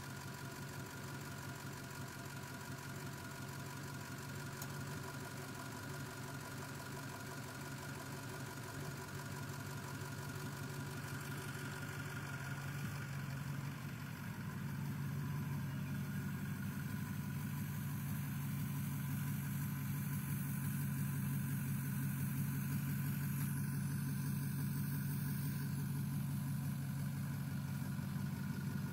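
Ford 6.0L Power Stroke V8 turbodiesel idling steadily with an even pulsing rhythm, which the owner attributes to bad injectors. It grows a little louder about halfway through.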